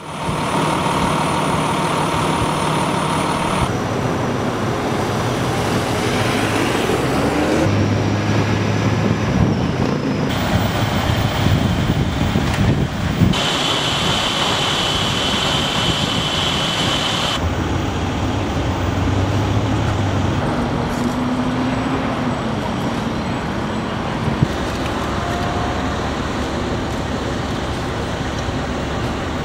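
Outdoor roadway sound of running vehicle engines and traffic noise, its character shifting abruptly several times. A steady high whine sounds for a few seconds in the middle.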